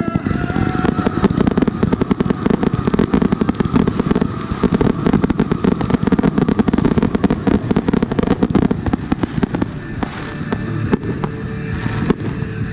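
Fireworks firing a dense, rapid barrage of bangs and crackles, thinning to scattered separate reports about ten seconds in.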